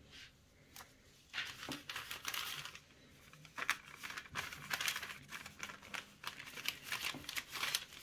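Baking parchment rustling under hands that lay and straighten a lattice-cut sheet of puff pastry over the filling: faint, irregular rustles starting about a second in, with a short lull near the middle.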